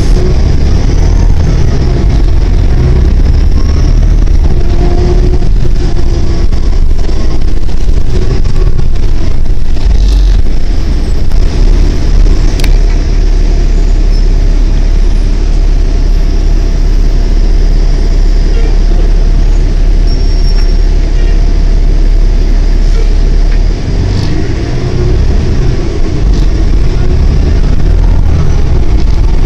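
Ride noise inside a New Flyer D40LF diesel city bus under way: a steady low engine and road rumble, with a couple of brief clicks or rattles partway through.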